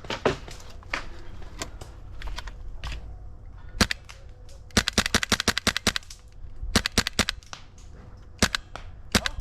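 Airsoft guns firing: scattered single shots, then a rapid burst of about ten shots a second lasting just over a second, a shorter burst, and a few more single shots.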